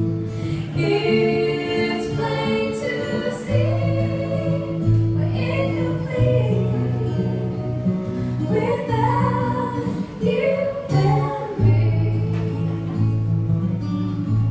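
Live pop-rock band music with female voices singing long, gliding wordless lines over steady bass notes.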